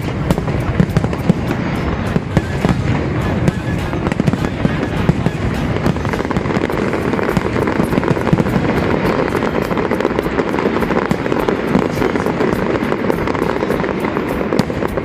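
Fireworks going off in a continuous dense barrage: a rapid crackle of many sharp pops over a steady rumble.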